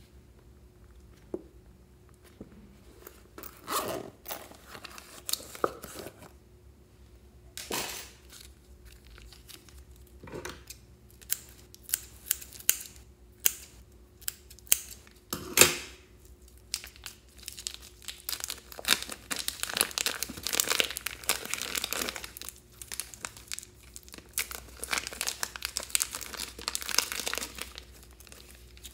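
Thin plastic bag crinkling and tearing as it is snipped open with scissors and peeled off a lump of clear slime. Scattered handling noises in the first half and one sharp snip about halfway through, then steady crinkling through the second half.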